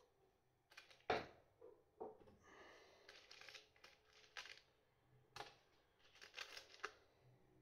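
Faint handling noise: small metal M4 screws rattling and scraping as fingers rummage in a plastic parts box, with a few sharp clicks and knocks of tools and parts set down, the loudest a click about a second in.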